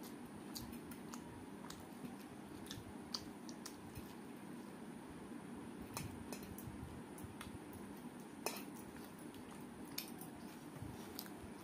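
Eating by hand from a steel plate: chewing and mouth smacks with fingers working rice, giving scattered small clicks, a few sharper ones standing out about three, six, eight and a half and ten seconds in.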